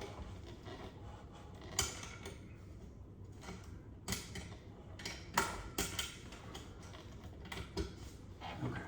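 Scattered clicks, taps and scraping as the spring clips of an LED recessed retrofit light are squeezed and worked up into a ceiling can, with a few sharper knocks along the way.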